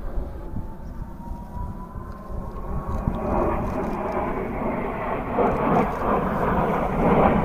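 Jet engines of the Blue Impulse formation's Kawasaki T-4 trainers passing overhead. A faint jet whine rises gently in pitch, then the engines' roar builds from about three seconds in and grows louder towards the end.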